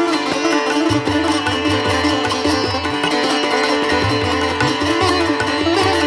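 Instrumental music: a plucked-string melody with bending notes over a steady drone, with a low repeating drum pulse underneath.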